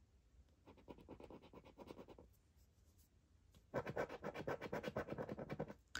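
Rapid scratching strokes scraping the scratch-off coating on a Jewel Bingo scratchcard: a short, faint bout about a second in, then a louder, longer bout from past the middle almost to the end.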